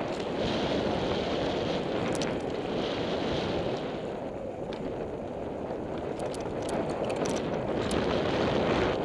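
Wind rushing over a helmet-mounted camera's microphone as a mountain bike rolls fast down a dirt trail, with tyre noise on the dirt and a few sharp clicks and rattles from the bike.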